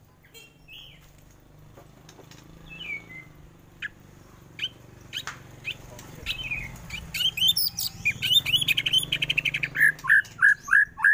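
White-rumped shama (murai batu) singing. After a quiet couple of seconds come scattered sharp notes and clicks, building about seven seconds in into a fast run of high chattering notes, then a string of repeated short whistled notes near the end.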